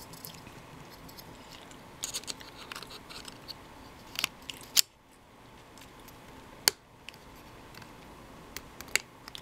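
Scattered small clicks and scraping handling noises from an Apple Magic Mouse being reassembled after a battery change. Two sharp louder clicks stand out, one about halfway through and one about two-thirds of the way through.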